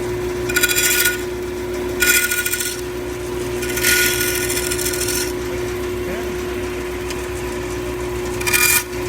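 Bandsaw running with a steady hum while its blade cuts a miter across a small wooden glazing moulding in four short passes: about a second in, at two seconds, a longer one around four to five seconds, and a brief one just before the end.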